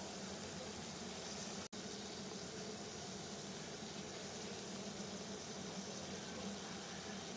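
Water at a steady rolling boil, a continuous bubbling hiss, broken by a split-second gap about two seconds in.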